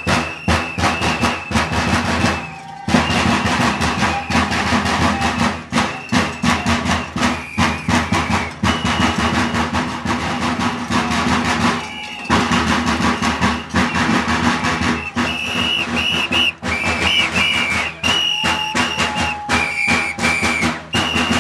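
Large bass drums beaten in a fast, steady rhythm, with shrill whistles blown over them in repeated long blasts that come more often in the second half. The drumming drops away briefly twice.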